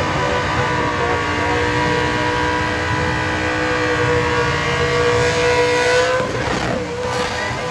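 A burnout car's engine held at high, steady revs while it spins its rear tyres into thick smoke; about six seconds in the revs waver and dip briefly, then pick up again.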